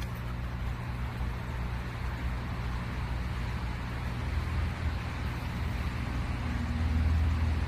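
A steady low motor hum with a hiss over it, swelling a little near the end.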